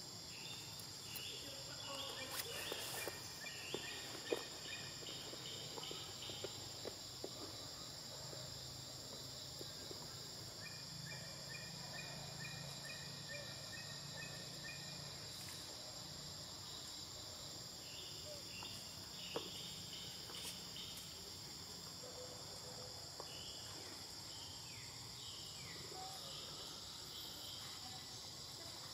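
Steady high-pitched drone of forest insects, with scattered brief chirping calls and a few faint clicks over it.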